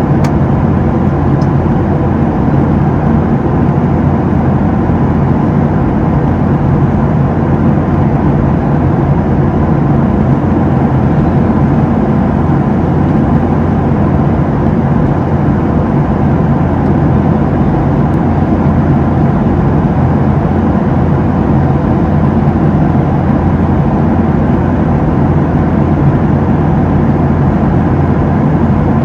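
Steady roar of a Boeing 737-700's CFM56-7 turbofan engines and airflow, heard from inside the passenger cabin, with a low hum underneath.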